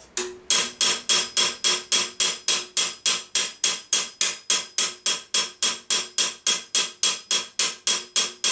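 A small round-faced hammer tapping quickly and evenly on 1.6 mm sheet metal held over a ball stake, about four blows a second. Each blow gives a short metallic ring. The blows draw the metal in around a rivet hole to close it off.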